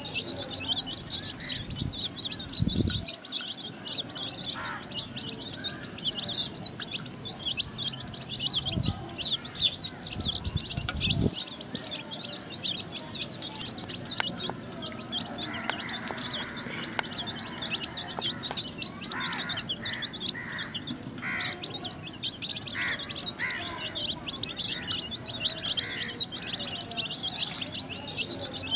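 Baby chicks peeping continuously in a dense stream of rapid, high chirps, with a few low bumps about 3, 9 and 11 seconds in.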